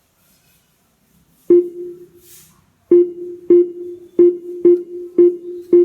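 A single musical note, plucked or struck at the same pitch each time, sounding once and then six more times in a quick, slightly uneven rhythm, each note dying away.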